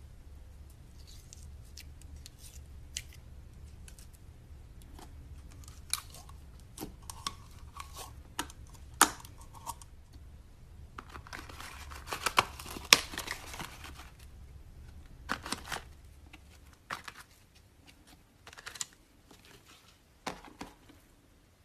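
Slime being handled, giving irregular sticky clicks and crackling pops, with a dense run of crackles a little past the middle. A faint low hum sits underneath and stops about three-quarters of the way through.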